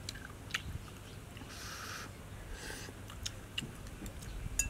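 A person eating soup from a spoon: scattered small clicks of the spoon and mouth, with two short slurps near the middle.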